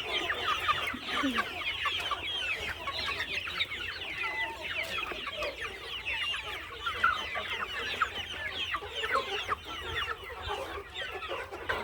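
A flock of country chicken chicks peeping constantly, a dense chorus of short, high, falling chirps, with some clucking.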